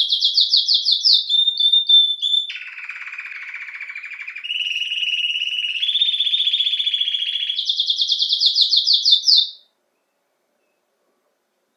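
Domestic canary singing a long song of fast trills. It switches between rapid high trills and a lower, rougher rolling trill, then stops abruptly a couple of seconds before the end.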